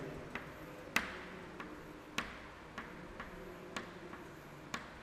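Chalk tapping on a chalkboard while cells are drawn: a string of sharp, irregular taps, about one every half second.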